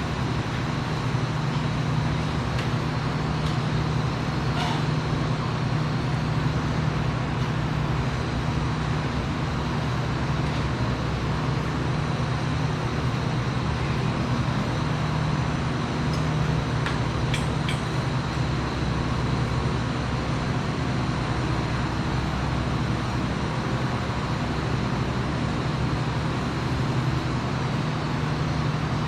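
Steady low machine hum, unchanging throughout, with a few faint clicks.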